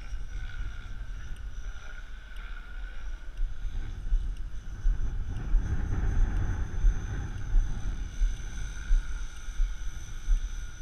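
Helicopter flying low as it comes in to land: a steady whine from the engine and rotors over a low, gusty rumble that grows stronger about halfway through.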